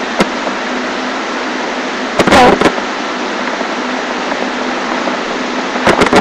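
Steady loud hiss with a faint hum from a webcam microphone, broken by a few sharp clicks and knocks: once near the start, a cluster with a brief squeak about two seconds in, and again near the end.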